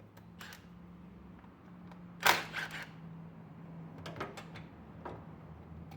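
Clicks and knocks of hand tools and parts being handled during engine-bay disassembly, with a louder clatter about two seconds in and a few lighter clicks later, over a faint low steady hum.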